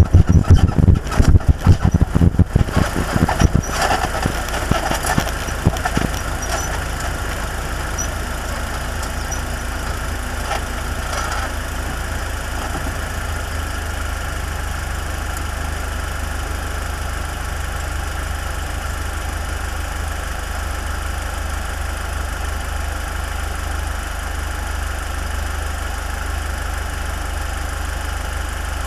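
Open-wheel race car's engine, heard from the cockpit, running loud and uneven for the first few seconds as the car rolls up, then settling to a steady idle while the car sits still.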